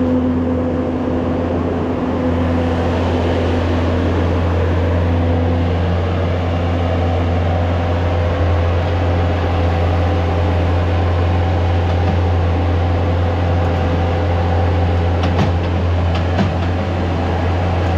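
Bobcat skid-steer loader's diesel engine running steadily under load while it scoops and dumps manure into a manure spreader, with a few short knocks about fifteen seconds in as the bucket dumps.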